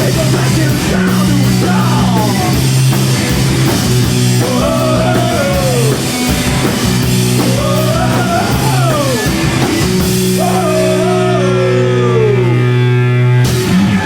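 Live rock band playing loud: drums and cymbals under sustained chords, with a singing voice sliding up and down in pitch. Near the end the band strikes a final hit and stops.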